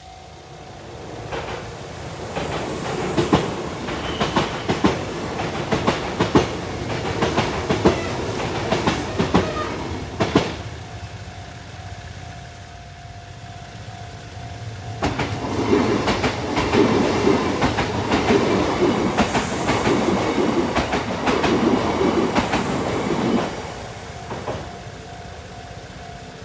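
Two Kintetsu Minami Osaka Line electric trains pass over the level crossing one after the other, wheels clattering over the rail joints. The first passes from about a second in to about ten seconds, and the second from about fifteen to twenty-three seconds. A level-crossing warning bell rings steadily in the quieter gap and after the second train.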